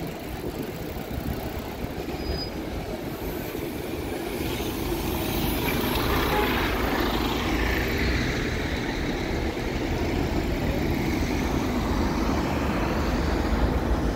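Busy road traffic at a city junction: engines and tyres of passing cars, taxis and buses in a continuous rumble that grows louder from about four seconds in, with a double-decker bus passing close near the end.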